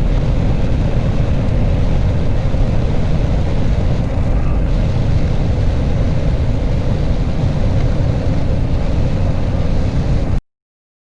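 John Deere 9500 combine running as it drives, a loud steady low-heavy machine noise that cuts off abruptly about ten seconds in.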